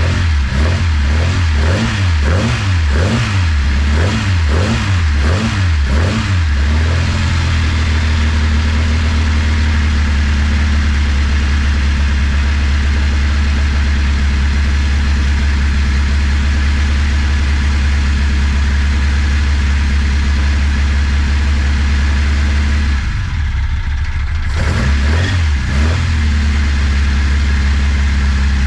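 A freshly built 1330 A-series engine in a classic Mini running during its first start-up. It is blipped repeatedly for the first several seconds, then settles to a steady idle. About three-quarters of the way through, the revs sag for a moment and it is blipped twice more before idling on.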